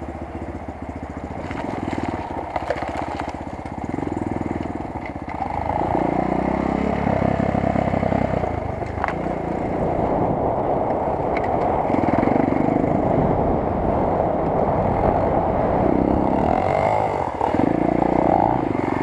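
Enduro motorcycle being ridden off-road, its engine revving up and easing off again and again. It gets louder about five seconds in.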